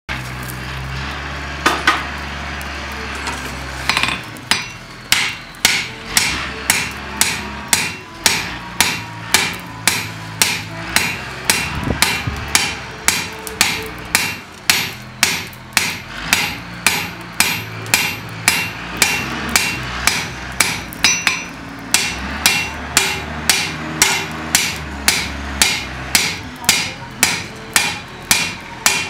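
Hand-hammer blows on a hot steel disc lying on an anvil, dimpling a pattern of dots into its surface. After a single blow, the steady strikes begin about four seconds in at about two a second, each with a short metallic ring.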